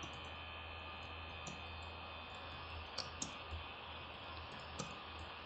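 Faint, scattered clicks of computer keyboard keys as text is typed, a handful of separate keystrokes over a steady low electrical hum.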